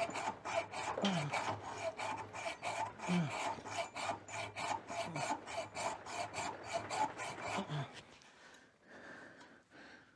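Hand hacksaw cutting through the steel ball joint housing pressed into a VW Beetle trailing arm, in steady back-and-forth rasping strokes that stop about eight seconds in. The ball joint is being slit so it can be knocked out without a press.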